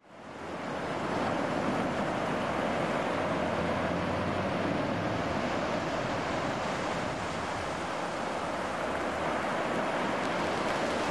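Ocean surf, waves breaking and washing in as a steady rush that fades in from silence over about the first second.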